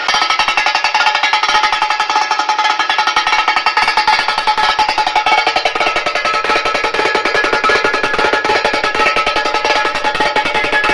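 Loud music from a car sound system's treble drivers: a fast, bright, clicking percussive track with very little bass.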